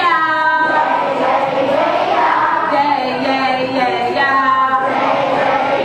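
A woman singing into a microphone with a group of children's voices singing along, with long held notes.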